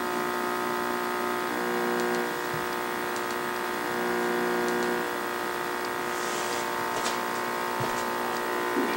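Steady electrical buzz with many overtones from the speaker of a 1960s Canadian Marconi portable vacuum-tube TV while no program sound is coming through during channel changes; the buzz shifts slightly a few times, with a few faint clicks.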